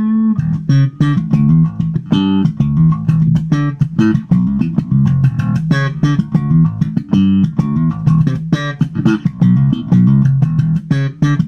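Electric bass guitar played slap style through a compressor pedal: a fast run of thumped low notes with sharp popped attacks.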